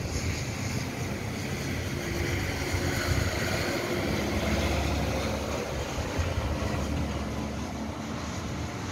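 Steady rain falling on a city street, with wind rumbling on the microphone.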